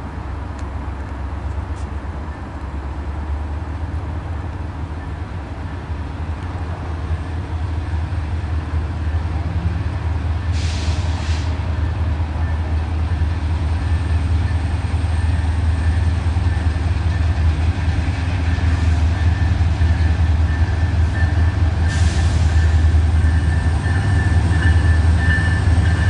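Diesel locomotives of a freight train, led by BNSF EMD SD60M No. 1409, approaching with a low engine rumble that grows steadily louder. Two brief higher-pitched noises stand out, about ten seconds in and again about twenty-two seconds in.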